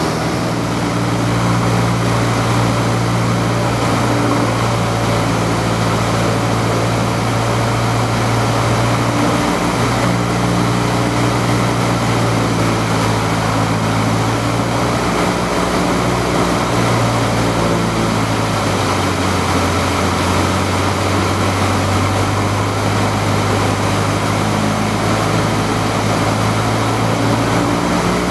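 Single-engine light aircraft's piston engine and propeller heard from inside the cockpit, a loud steady drone over rushing air noise. About halfway through the engine note drops lower in two steps, power being reduced on the approach.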